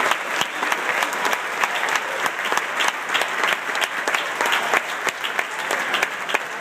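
Large crowd applauding: a dense, steady sound of many hands clapping at once.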